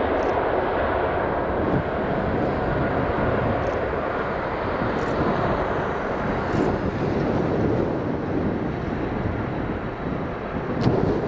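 Boeing 777-300ER's two GE90-115B turbofans at takeoff thrust, a steady jet roar as the airliner rolls down the runway away from the microphone.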